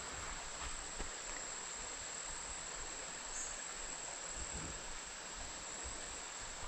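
A steady insect chorus: one constant high-pitched drone over a soft, even background hiss.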